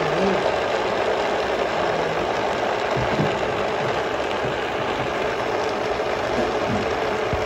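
Countertop blender motor running steadily at high speed, its blades churning a thick, creamy mixture in the plastic jar.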